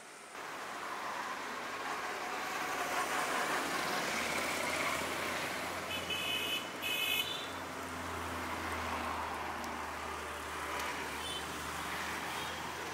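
Road traffic, motorcycles and cars passing close by, with a low engine hum, and two short vehicle horn honks about halfway through.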